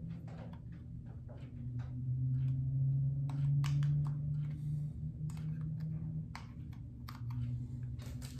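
Small irregular clicks and taps of fingers twisting and prying at the threaded cap of a clip-on telephoto converter lens that is stuck and won't unscrew, over a low steady hum that swells in the middle.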